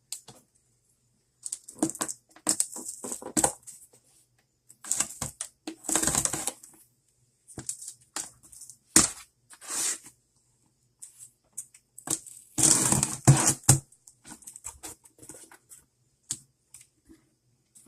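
A thrift-store grab box being opened by hand: irregular rustling, scraping and clicks of the box and its contents being handled, loudest about six seconds in and again around thirteen seconds.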